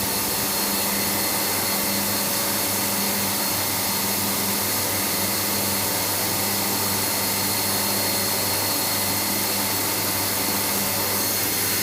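CNC milling machine cutting a graphite EDM electrode: a steady machining noise, a high hiss over a low hum.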